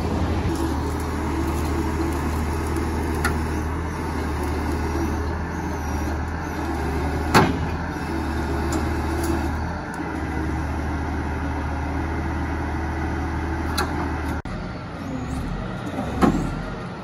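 Heavy wrecker's diesel engine running steadily while it powers the boom and winch lifting a tipped-over excavator upright, with two sharp clanks, one about seven seconds in and one near the end.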